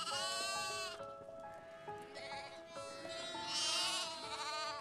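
A flock of lambs bleating, with several overlapping wavering calls near the start, again about two seconds in, and loudest at about three and a half seconds, over soft background music with held notes.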